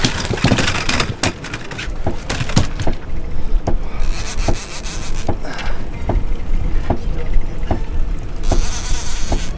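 Spinning reel being worked against a hard-pulling striped bass: irregular clicks and rubbing from the reel and rod, with two short stretches of high-pitched drag buzz as the fish takes line, one near the middle and one near the end.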